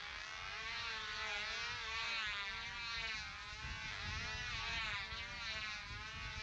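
Small two-stroke model engines of control-line combat airplanes running flat out with a high-pitched buzz. The pitch wavers up and down continuously as the planes circle the pilots.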